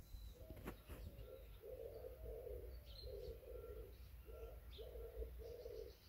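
A dove cooing faintly, a run of low coos in repeated phrases, with a few faint high chirps from small birds.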